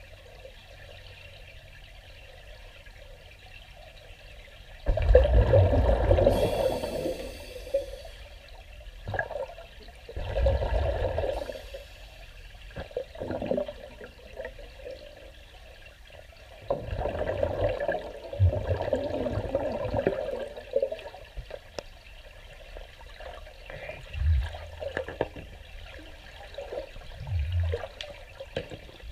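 A diver's exhaled air bubbling out of a mini scuba tank's regulator, heard underwater: bursts of bubbling a few seconds apart, the longest lasting about three seconds, over a low steady background.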